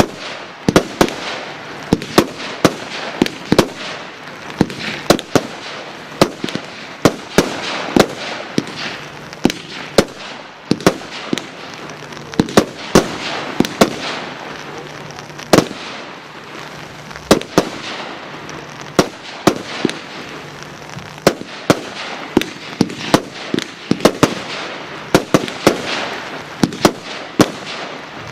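Wolff 'Ammo Crate' firework cake firing: a long, rapid run of sharp bangs, roughly two or three a second and uneven in strength, with a continuous hiss between them.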